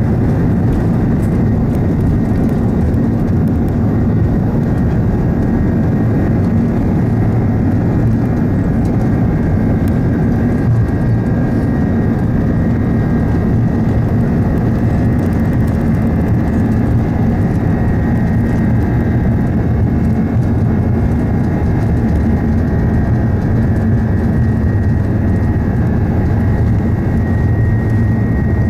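Airbus A330 jet engines and wheels on the runway heard from inside the passenger cabin during the takeoff roll: a loud, steady rumble with a faint steady high whine above it.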